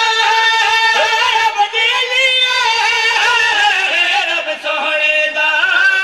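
Men singing a devotional Urdu/Punjabi qaseeda into a microphone, with long held, wavering notes.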